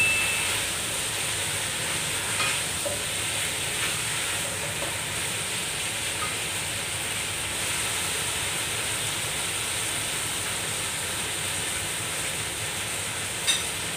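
Chicken pieces sizzling steadily as they are sautéed in oil with spices in a pot, stirred with a wooden spatula that knocks lightly against the pan a few times.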